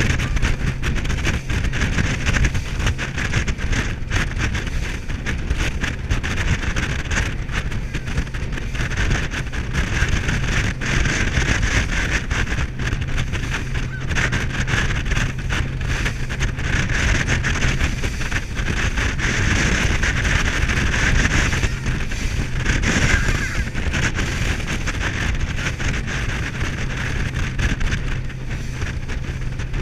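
A RIB boat's engine running steadily at cruising speed, with wind buffeting the microphone and water rushing along the hull.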